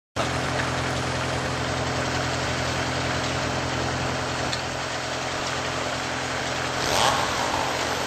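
Engine idling steadily with an even hum. Near the end a brief scraping rise as the walnut log is rolled onto the sawmill deck.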